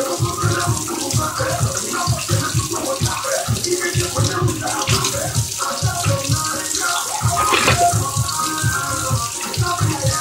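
Background music with a steady beat, over a steady hiss in the kitchen.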